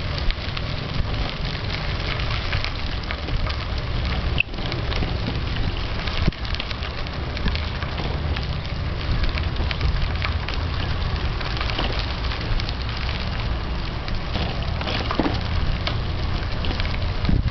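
Bicycle tyres rolling over a fine-gravel trail: a steady crackle of tiny clicks, with a low rumble underneath.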